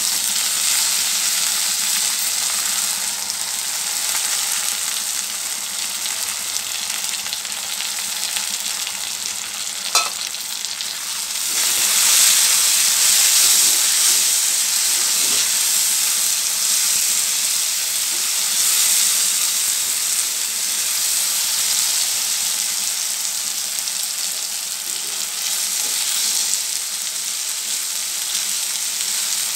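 Soaked split moong dal sizzling in hot oil in a kadai while a silicone spatula stirs it. The sizzle gets louder about twelve seconds in, and there is one sharp click around ten seconds.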